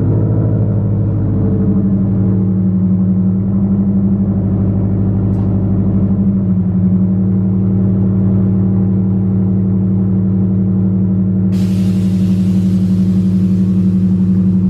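Subaru WRX STI's flat-four engine idling steadily with a low, even note. A steady hiss joins about two-thirds of the way through.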